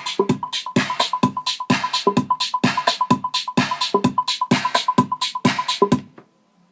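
Electronic music with a fast drum-machine beat and a steady synth tone, cutting off suddenly near the end.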